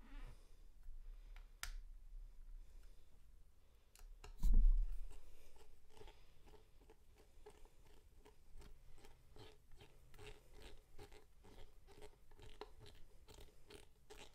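An M3 screw being turned with a screwdriver into a tight hole in 3D-printed plastic: a run of short crunching creaks and clicks, about two or three a second, as the thread bites into the plastic. One dull thump about four and a half seconds in is the loudest sound.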